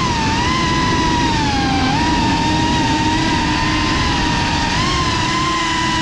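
FPV quadcopter's brushless motors whining at a steady high pitch that dips and rises a little with the throttle, over a low rushing noise.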